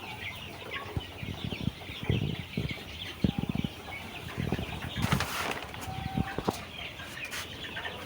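A flock of about 800 Sonali hybrid chickens clucking and cheeping all at once, with scattered wing flaps and scuffling. A louder rustle of flapping wings comes about five seconds in.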